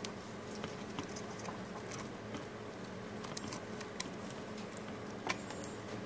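Scattered small clicks and taps of a circuit board and its wire connector being handled and seated in a vacuum cleaner's plastic handle housing, with one sharper click near the end. A faint steady hum runs underneath.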